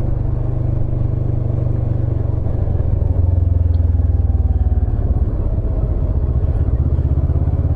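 Kawasaki motorcycle engine running steadily as the bike is ridden, a deep pulsing rumble that gets louder about three seconds in.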